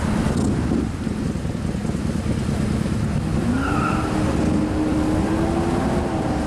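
Classic Pontiac GTO's V8 rumbling at low speed as it creeps past in slow traffic. About three and a half seconds in, an engine note rises and then holds steady.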